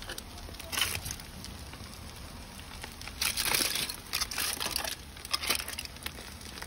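Aluminium foil crinkling in a few short rustles as the foil packets are handled with tongs, the longest about three seconds in.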